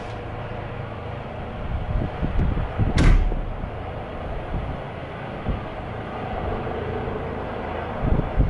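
Helicopter coming in to land: a steady low rumble with irregular low thumps. A sharp click about three seconds in is the loudest moment.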